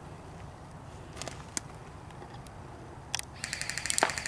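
Electric airsoft rifle firing a fully automatic burst: a rapid, even rattle of about a dozen shots a second that starts about three seconds in, with a sharper crack near the end. Before it there is only a low rumble and a couple of single clicks.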